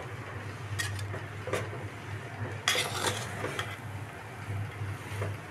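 A utensil scraping and clinking against an aluminium cooking pot as cooked rice is stirred and loosened, a few separate clatters with the loudest about three seconds in. A steady low hum runs underneath.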